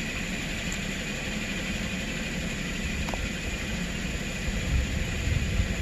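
A 2010 Toyota Corolla S's four-cylinder engine idling steadily, with a few heavier low bumps near the end. The engine has an intermittent misfire on cylinder 4 (code P0304).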